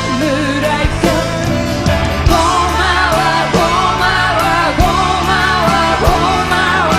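Rock band playing live: drums and bass under a high, wavering lead melody line.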